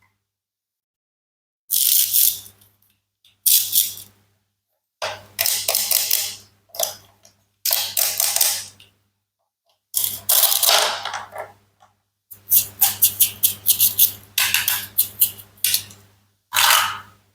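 Toy knife cutting apart plastic and wooden toy fruits and vegetables: a series of separate scraping, clicky cuts, each a second or two long, with short silences between. About two-thirds of the way through comes a fast run of clicks.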